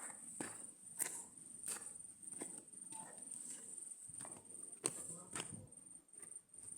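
Irregular footsteps or knocks on a hard surface, about one or two a second, over a steady high-pitched insect buzz.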